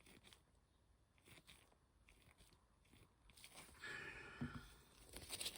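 Near silence, with faint small clicks and soft handling rustles in the second half.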